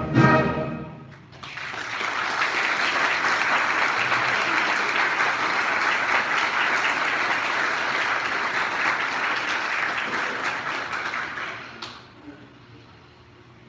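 A school concert band's final chord cuts off and rings away briefly in the hall, then the audience applauds for about ten seconds, the clapping dying away near the end.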